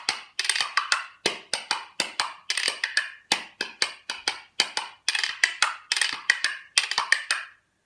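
A pair of handmade maple wooden spoons played as rhythm percussion: fast, even clacking, several sharp clicks a second in a steady groove.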